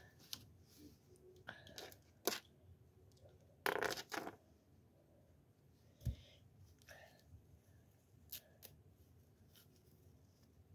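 Handling noise of a plastic doll and its small clothes and accessories: scattered clicks and rustles, with a louder bit of rustling about four seconds in and a soft thump about six seconds in.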